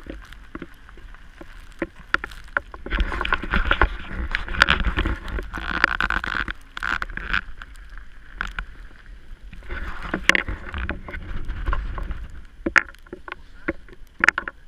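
Kia cee'd's tyres rolling over wet gravel and slushy, flooded ice, with a low rumble and a hissing, splashing rush that swells twice, and many sharp ticks and knocks scattered throughout. Wind buffets the side-mounted camera's microphone.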